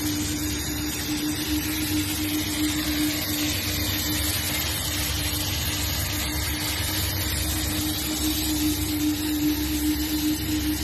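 A corded handheld power tool worked along the foot of a wall, together with an industrial dust-extraction vacuum, running steadily: one unchanging hum over a loud hiss.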